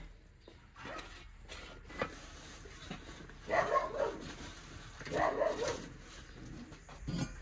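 A dog barking in two short bouts, about a second and a half apart, with a few faint knocks between them.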